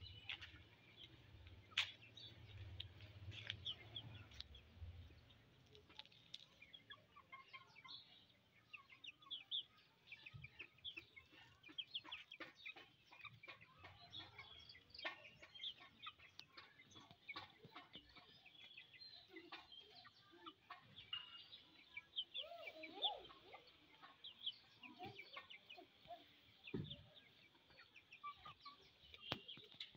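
Chickens clucking faintly, with many short high chirps scattered throughout and no clear crow. A low rumble runs under the first five seconds.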